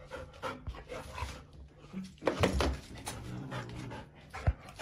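A puppy barking at a cat in short, sharp yaps, loudest about halfway through, with one more yap near the end.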